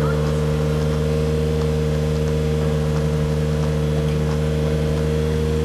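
Suzuki JB64 Jimny's 660 cc turbocharged three-cylinder engine running steadily through a 5ZiGEN aftermarket exhaust, heard at the tailpipes with a deep, low note and held revs. This is a close-range exhaust noise test reading about 92 dB, inside the 97 dB limit for a kei car.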